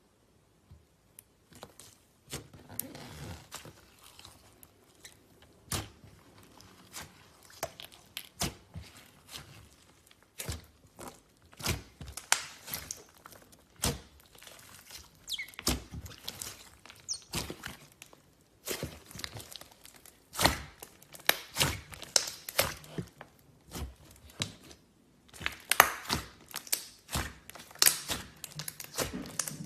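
Slime being played with by hand, making irregular sharp clicks and pops with a few stretches of crackling.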